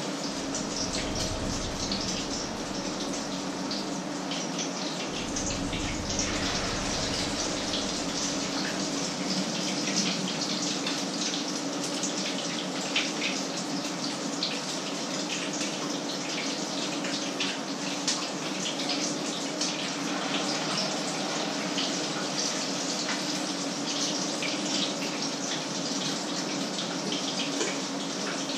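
Food sizzling and crackling in a frying pan on an electric stove, a steady hiss full of fine pops, over a steady hum.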